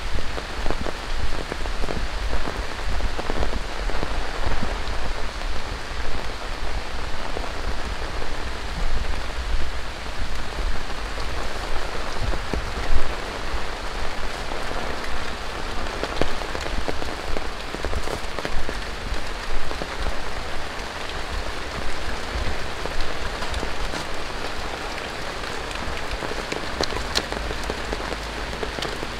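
Steady rain falling on hard surfaces, with many individual drops ticking close by.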